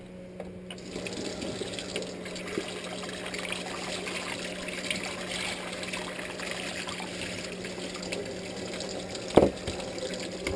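Kitchen tap running into a stainless steel sink while a bowl is rinsed under the stream. A single sharp knock sounds near the end.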